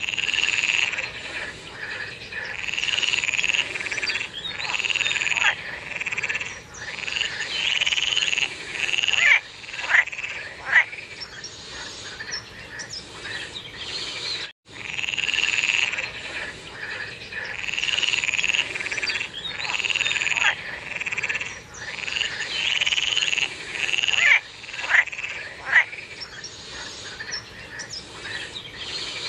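Frogs calling in chorus: repeated calls about a second long, one after another every second or two, with a few short sharp calls among them. The sound breaks off for an instant about halfway through.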